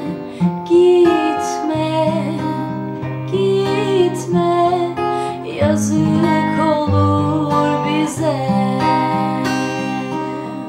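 Acoustic guitar fitted with a capo, playing picked and strummed chords as an instrumental interlude in a slow ballad.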